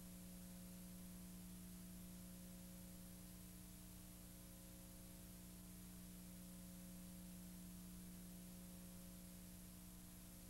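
Near silence: a steady low electrical hum over faint hiss.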